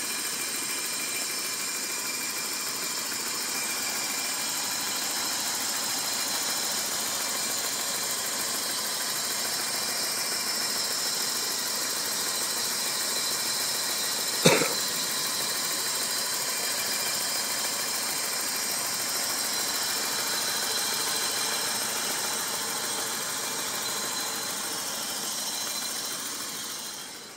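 Car engine running steadily at idle, with thin high-pitched whine tones over it. A single sharp click comes about halfway through, and the sound falls away just before the end.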